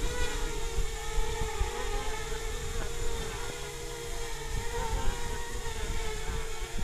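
Electric motors and propellers of a Fox 2300 model glider converted to VTOL, running as one steady whine that wavers slightly in pitch, with wind rumbling on the microphone.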